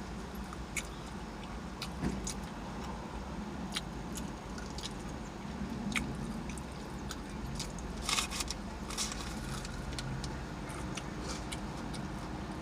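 Close-up eating sounds: chewing with scattered wet mouth clicks and smacks, a cluster of louder smacks about eight seconds in, over a steady low hum.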